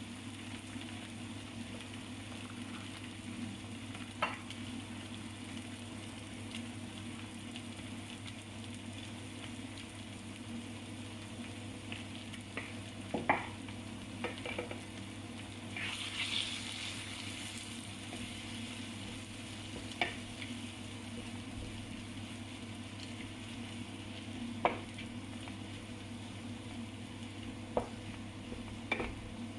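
Kottu roti frying on a flat iron griddle: a steady sizzle with a few scattered metal clinks from the cook's tools, and a louder burst of sizzling about sixteen seconds in. There is no fast rhythmic chopping.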